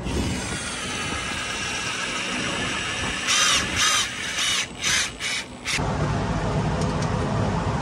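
Power drill driving a long stainless-steel screw through a boat's fiberglass transom: a steady run, then a string of short trigger bursts that rise and fall in pitch.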